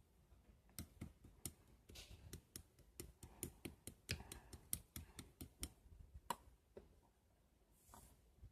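Slime being pressed and worked by hand, giving off a run of small, faint, sticky clicks and pops at an uneven pace, several a second, which thin out after about six seconds.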